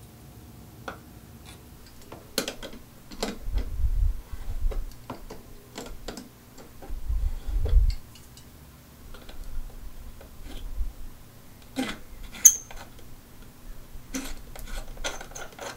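Channel-lock pliers loosening the nut on a faucet valve: scattered metallic clicks and knocks, with a few dull thumps. One sharp metallic clink rings briefly about three quarters of the way through.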